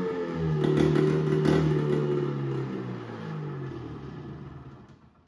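1978 Polaris Cobra 440 snowmobile's two-stroke engine running on premix, freshly brought back to life. It revs up about half a second in, holds for a couple of seconds, then winds down and dies away near the end.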